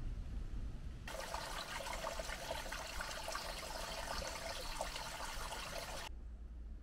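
Thin-sounding trickle of running water, starting about a second in and cutting off abruptly about a second before the end.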